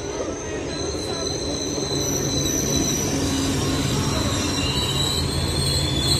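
Passenger train rolling in with a steady rumble, its wheels squealing on the rails in several thin, high, wavering tones.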